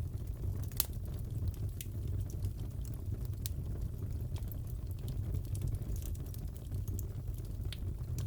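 Wood fire crackling in a fireplace: a steady low rumble of flames with sharp pops and snaps scattered irregularly throughout.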